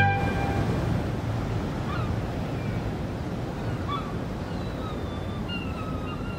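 Wind and choppy bay water make a steady rushing noise, with a few faint, short bird calls now and then. A music cue fades out right at the start.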